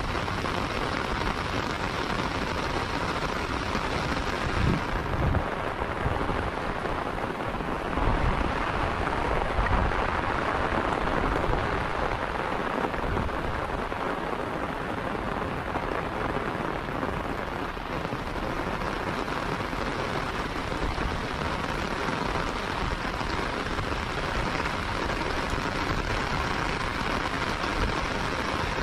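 Heavy rain falling steadily, with a few low rumbles about five seconds in and again around eight to ten seconds in.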